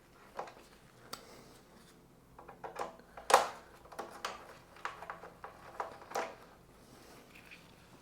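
Scattered light clicks and knocks of small metal parts and hand tools being handled, about a dozen irregular taps with the loudest a little over three seconds in.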